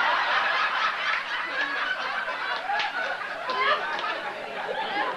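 A roomful of people laughing and chuckling, many voices mixed together.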